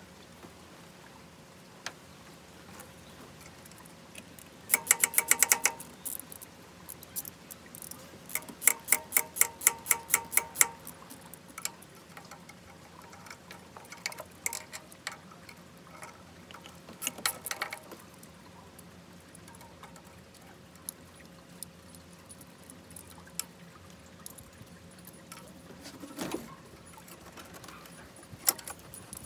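Ratchet wrench clicking in three short bursts of quick, even clicks, with a few single metallic clinks and a dull knock near the end.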